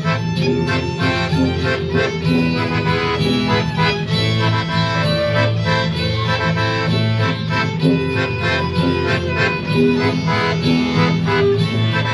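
Live folk band playing an instrumental passage: a fiddle melody over strummed guitar and a steady low bass line.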